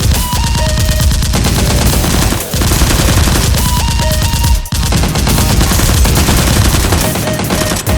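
Rapid, continuous automatic gunfire sound effects, with two brief breaks in the firing, over faint background music.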